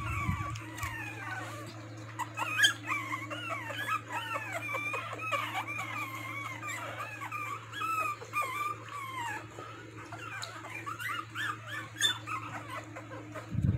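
A litter of three-week-old toy poodle puppies whimpering and squeaking, many short high cries rising and falling and overlapping one another, over a steady low hum.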